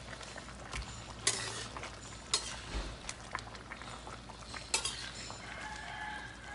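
Metal spatula stirring chicken and vegetables in broth in a stainless steel wok, scraping and clinking against the pan several times.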